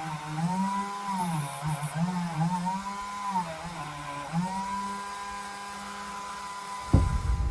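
Small electric power tool running with a whine whose pitch dips and recovers several times as it bites into the work, then holds steady. Near the end the sound cuts abruptly to a louder rumbling noise.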